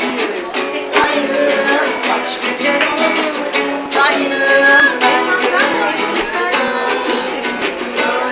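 A band playing music: strummed guitar with singing.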